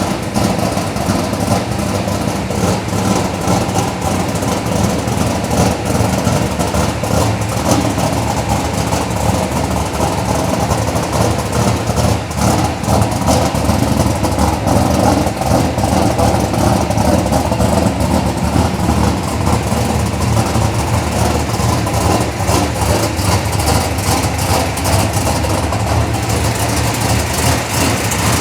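Chevelle SS's high-compression big-block Chevrolet V8 idling loud and steady with a rapid rumbling pulse, running on a newly installed Edelbrock Pro-Flo 4 fuel injection that still has to be fine-tuned.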